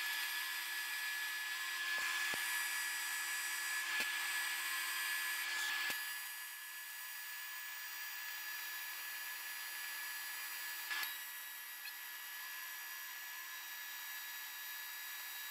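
TIG welding arc on aluminum sheet, running steadily as a buzzing hiss with a high whine. It drops a little in level about six seconds in, with a few faint clicks.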